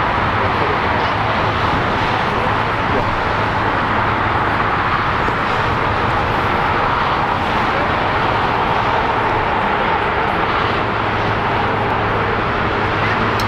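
Steady jet aircraft noise at an airport: an even, unbroken rushing sound with a low hum underneath.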